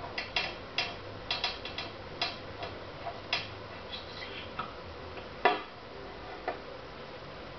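Antique hand brace drill being handled and worked, giving irregular metallic clicks and knocks, with one louder knock about five and a half seconds in.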